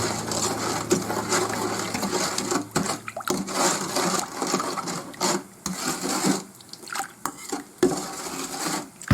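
Kitchen handling sounds during food preparation: irregular rubbing and rustling with light knocks. A steady low hum stops about three seconds in.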